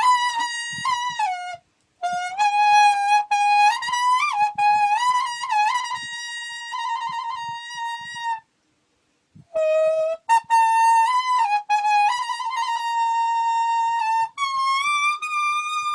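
A melody played by blowing on a leaf held to the lips (Khmer plom slek leaf whistling). It is a single line of held notes joined by quick slides, with fluttering trills. The tune runs in phrases, broken by two short pauses about two seconds and nine seconds in.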